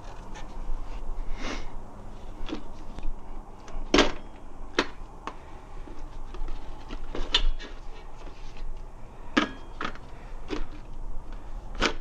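Irregular sharp clicks and knocks of tire spoons and rim protectors against a motorcycle wheel rim, as the second bead of a tire is levered on by hand. The loudest knock comes about four seconds in.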